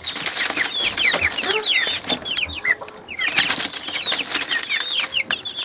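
A brood of young chicks peeping: many short, quick, falling peeps overlapping one another, with scuffling among them as a hand reaches into the box.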